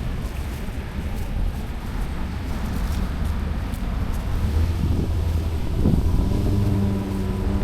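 Outdoor street ambience: wind rumbling on the microphone with the low hum of road traffic. Over the last second or so a vehicle engine comes in close with a steady low drone.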